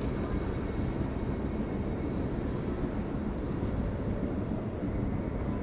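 Steady city street din with a low rumble throughout, typical of traffic and a busy station district.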